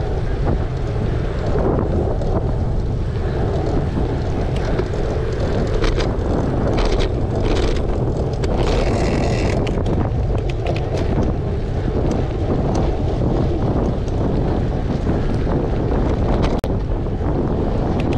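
Wind buffeting an action camera's microphone while it moves, a steady low rumble, with a few light clicks in the middle.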